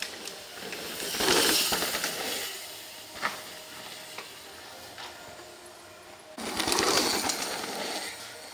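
A downhill mountain bike going past with its tyres crunching through loose dirt, twice: a rush of noise about a second in and again, starting suddenly, at about six and a half seconds, each fading over a second or so. Light clicks and rattles from the bike come in between.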